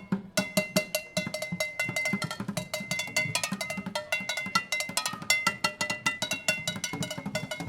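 Live percussion playing a fast, busy rhythm of drum hits with ringing, bell-like pitched strikes over them; it breaks off for a moment at the start and then carries on.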